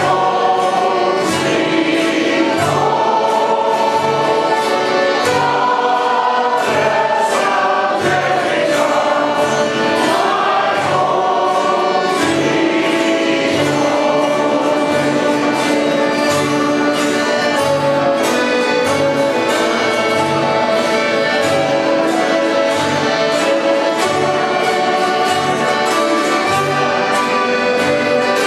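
Music: choral singing over a steady, regular beat.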